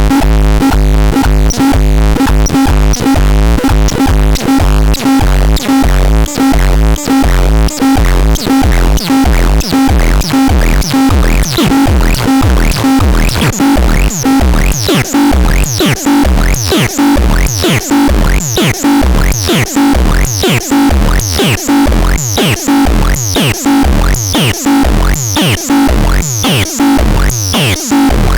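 ADEPAX synthesizer playing an electronic pattern: an even pulsing sequence with a deep bass note on each beat and steady tones above it. From about halfway through, each note also carries a quick falling sweep high in pitch.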